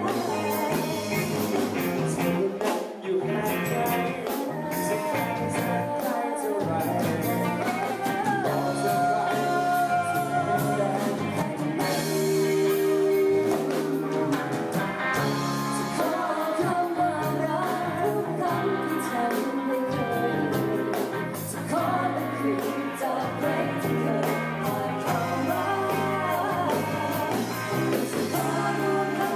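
A song with a singing voice over a band with a steady beat, including some long held notes.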